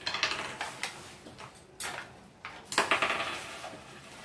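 Handling noise from a small cardboard carton and its packing: rustling and crinkling with light taps and clicks of small pieces against a tabletop, in a few irregular louder bursts.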